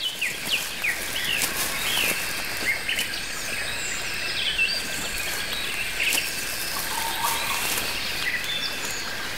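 Tropical rainforest ambience: many short bird calls and chirps scattered throughout, over a steady high-pitched insect drone.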